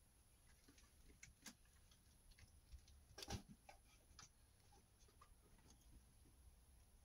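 Faint, sparse clicks and crunches of a nine-week-old kitten chewing its prey, with one louder crunch about three seconds in.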